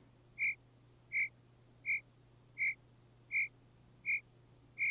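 A short, high-pitched electronic beep repeating evenly, seven times, a little under a second apart, over a faint steady hum.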